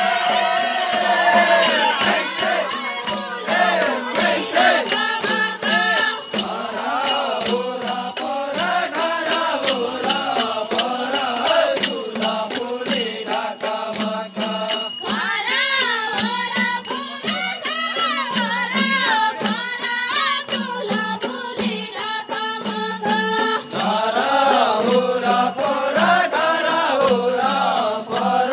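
Nepali deuda folk song: a melodic singing voice with wavering held notes over a steady beat of jingling, rattling percussion.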